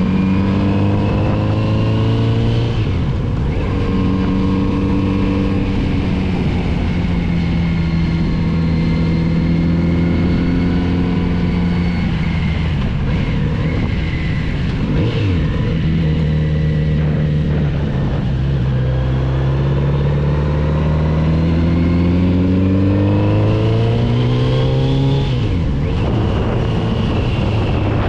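Kawasaki Z900RS inline-four engine pulling through a run of bends. The pitch sinks as it slows and climbs as it accelerates, dropping sharply at gear changes about three seconds in, in the middle and near the end.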